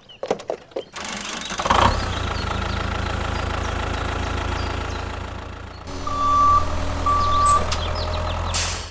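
A heavy vehicle engine running steadily, with two beeps of a reversing alarm in the second half. The sound cuts off abruptly.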